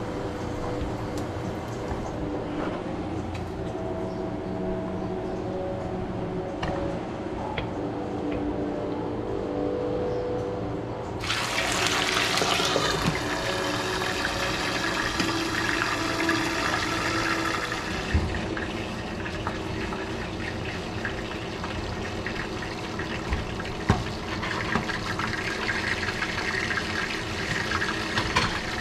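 Milkfish frying in oil under the glass lid of a skillet: a steady sizzle that turns louder and brighter, with more crackle, about eleven seconds in.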